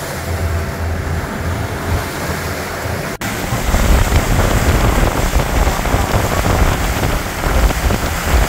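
Water rushing and splashing along the hull of a moving Chao Phraya orange-line river boat, with a deep rumble underneath. The sound breaks off for an instant about three seconds in and carries on a little louder.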